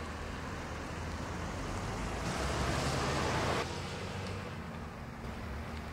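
Street noise with a car running: a steady low hum, and for about a second, from just past two seconds in, a louder rushing noise that cuts off abruptly.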